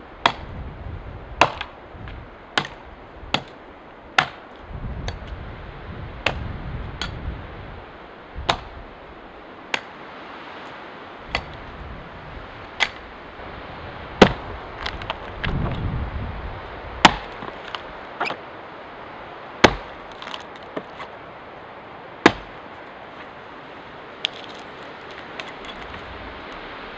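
Homemade axe chopping into a dead conifer trunk: sharp, regular strikes about one a second over steady wind noise. Near the end the blows stop, leaving only a few faint knocks.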